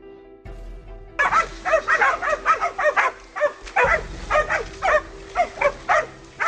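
Music briefly, then from about a second in a hunting dog barks rapidly and repeatedly, about two to three barks a second, baying a wild boar that is holed up in a stream bank.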